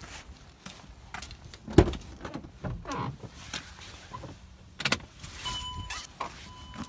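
Handling knocks and rustles as someone climbs into a 2011 Mercedes Sprinter van's cab, with a loud thump about two seconds in and another near five seconds. Then a steady electronic warning tone from the van's dash sounds, breaking off briefly and starting again.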